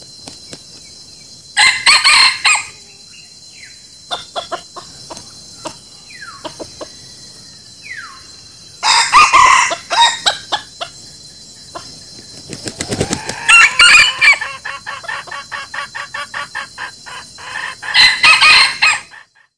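Rooster crowing four times, each crow about a second long, with a run of quick clucking notes between the third and fourth crows.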